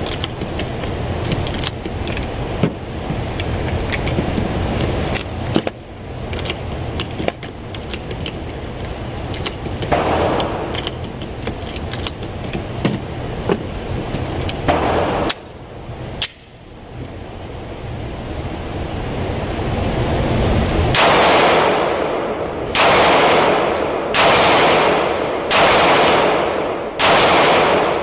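Springfield XD-S .45 ACP pistol being fired: five loud shots about a second and a half apart near the end. Before them there is steady range noise with sharp, fainter cracks, typical of other guns firing on the range.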